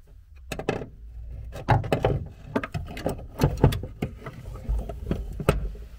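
Irregular metal knocks and clanks as a steel clutch pedal assembly is pushed and worked into a VW Beetle's floor tunnel, over a low handling rumble.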